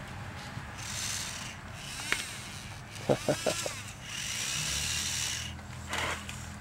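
Small electric gear motors of a homemade RC car's grabber arm and drive whirring in short bursts, with a sharp click and then three quick knocks in between.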